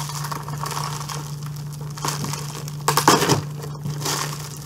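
A heavily taped mail package being torn and wrestled open by hand: packing tape and wrapping crackling and crinkling in irregular bursts, loudest in a short cluster a little after halfway.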